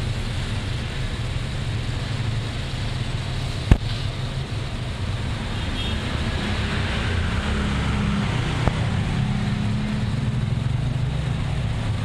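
National F-EQ401 16-inch orbit ceiling fan running: a steady low motor hum with the rush of air from its spinning blades. A sharp click about four seconds in and a fainter one near nine seconds.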